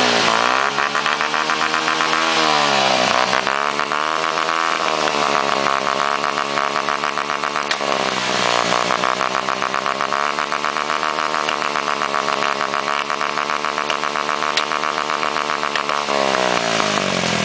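Honda Biz single-cylinder four-stroke engine revved and held against its rev limiter, stuttering rapidly, with a few sharp pops from its aluminium aftermarket exhaust. The revs dip briefly about three seconds in and again about eight seconds in, then fall away near the end.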